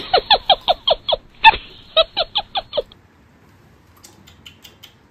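A comic sound effect: a quick run of short, squeaky, falling notes, about six a second, that stops after about three seconds, followed by a few faint clicks.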